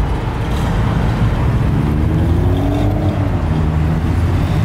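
A car driving past on the street, its engine note rising and then falling midway, over a steady low rumble of traffic.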